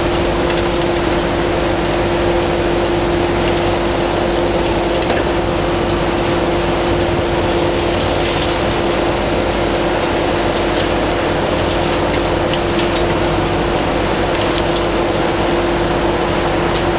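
Demolition excavator running steadily, its engine and hydraulics giving a constant whine as the shear works at the building. A few faint crackles of debris near the end.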